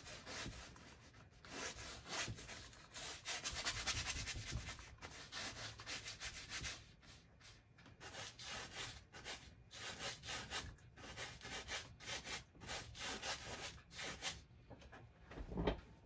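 Wide flat brush scrubbing oil paint onto canvas in many short back-and-forth strokes, the bristles rasping on the canvas weave; the strokes stop about a second and a half before the end.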